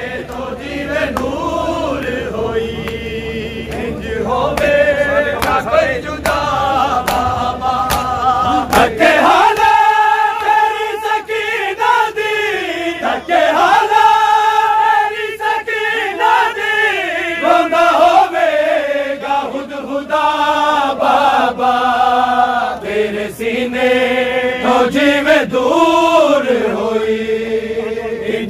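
Male voices chanting a Punjabi noha, a mourning lament, in long held, gliding melodic lines. During the first third, steady chest-beating (matam) slaps keep time under the chant.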